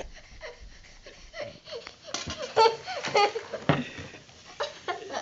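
A young girl giggling and laughing excitedly in short bursts, with a few light knocks in between.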